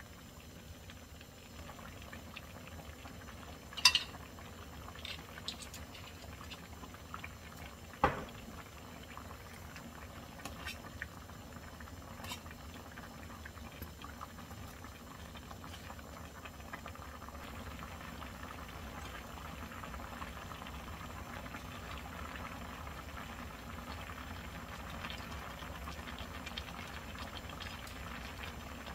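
Spicy rockfish stew broth bubbling at a steady boil in a wide pan, getting a little louder in the second half. Two sharp knocks, about four seconds apart, stand out over the bubbling.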